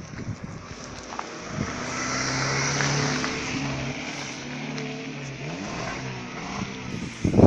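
A motor vehicle driving past: engine hum and road noise swell to a peak about two to three seconds in and then fade, the hum dropping in pitch as it goes by.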